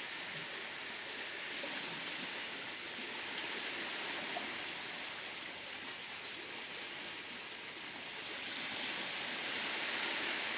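Sea waves washing, a steady hiss that swells a little near the end.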